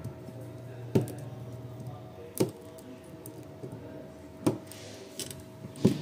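Battery spot welder firing four pulses through a nickel strip onto 18650 lithium cells, each weld a sharp snap, spaced one to two seconds apart over a faint steady hum.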